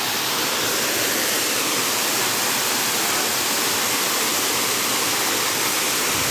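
Waterfall crashing steadily: a constant, even rush of falling water.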